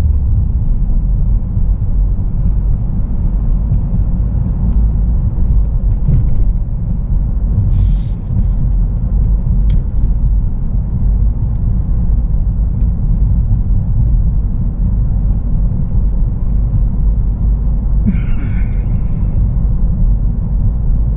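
Steady low rumble of a Ford Focus heard from inside its cabin as it is driven in town traffic. A brief high hiss comes about eight seconds in, with another short burst of noise near the end.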